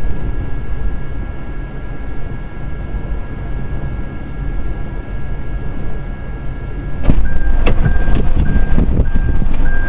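Steady low rumble of wind and a vehicle, heard from inside the stopped car, with a faint steady whine. About seven seconds in it turns suddenly louder and rougher, with a few knocks.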